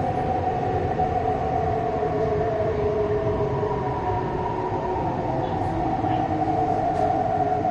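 MTR East Rail Line electric train running, a steady rumble of wheels on track with the whine of the traction motors as several held tones that drift slightly in pitch.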